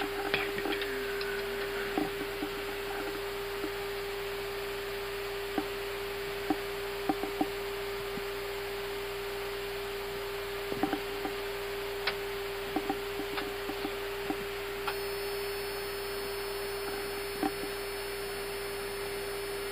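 A steady electrical hum at a single pitch from the Airbus A320's 400-cycle AC power system, picked up on the cockpit audio, with faint scattered clicks over it.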